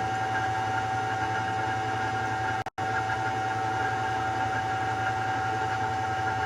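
Table saw running steadily with a constant motor whine and hum. The sound cuts out for a split second near the middle, then carries on unchanged.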